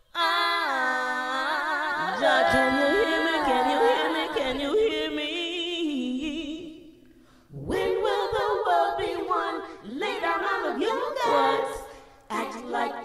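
A cappella vocal harmony: several voices hold sustained chords with vibrato. They stop briefly about seven seconds in, then come back in shorter phrases.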